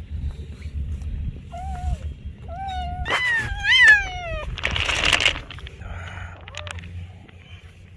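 Domestic cat meowing about three times in short succession, the last meow the loudest, followed by a brief burst of noise. A steady low rumble runs underneath.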